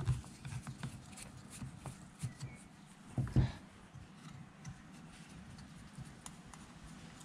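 Light clicks and taps of metal carburettor parts being handled and worked by hand, with a louder knock about three seconds in.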